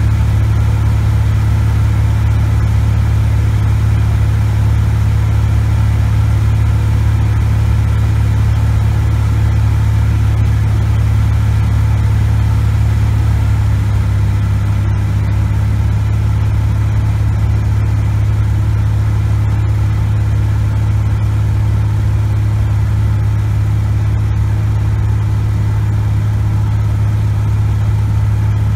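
Cessna 180 Skywagon's six-cylinder Continental O-470 engine and propeller droning steadily in cruise flight, heard from inside the cockpit. The deepest part of the drone eases slightly about halfway through.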